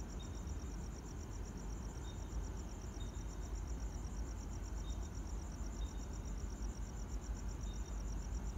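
Crickets chirping in a fast, steady pulsing trill, with brief higher chirps from another insect now and then. A low rumble runs underneath.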